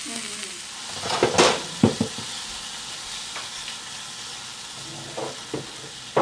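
Sliced dryad's saddle mushrooms sizzling steadily in olive oil in a frying pan, with a few sharp scrapes and knocks of a utensil stirring them about one to two seconds in.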